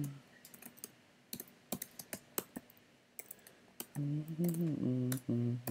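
Typing on a computer keyboard: a quick, uneven run of key clicks as a name is typed. About four seconds in, a man's voice makes a low wordless murmur.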